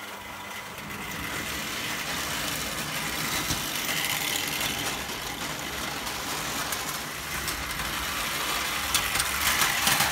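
Prewar Lionel O gauge toy train running on tinplate three-rail track: a steady rumble and clatter of wheels and electric motor. It grows louder toward the end as the four-wheel freight cars pass close by.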